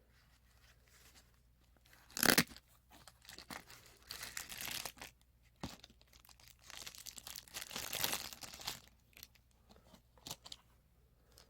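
Nylon knife sheath being handled: a short sharp rasp about two seconds in, then two longer stretches of rough rustling and scraping.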